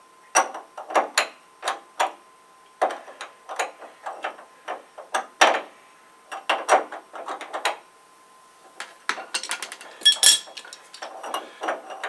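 Repeated metal knocks and clinks of a socket and wrench being worked on an electric water heater's stuck lower heating element, with a quick run of rapid clicks about nine seconds in.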